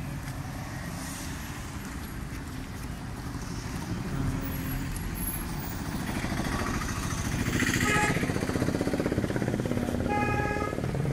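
Motor vehicle engine running close by, getting louder over the second half with a fast throbbing, and a short steady horn note near the end.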